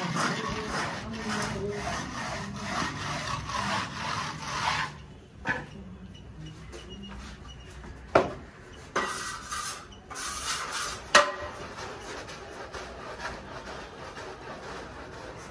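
Mason's trowel scraping over wet cement plaster in quick repeated strokes for about the first five seconds. After that it goes quieter, with a few sharp knocks and two short bursts of scraping near the middle.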